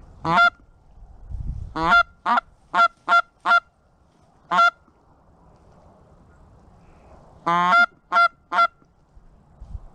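Canada goose call blown in a series of about ten short, loud honks and clucks, with one longer honk near the end, calling to geese in flight.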